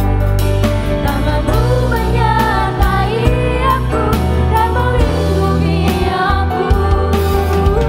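Christian worship song playing: a sung melody over a band with steady bass and drums.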